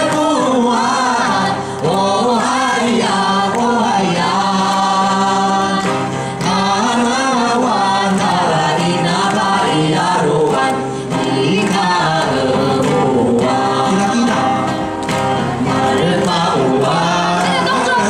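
A mixed group of men and women singing an Indigenous Taiwanese song together through microphones, with acoustic guitar accompaniment, in a live amplified stage performance.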